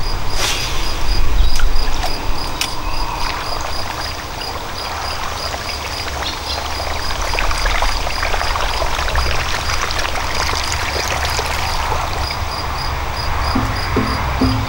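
Topwater duck lure cast from an Abu Garcia Ambassadeur baitcasting reel and worked back across a pond, splashing and gurgling on the surface. The first two seconds, during the cast, are the loudest.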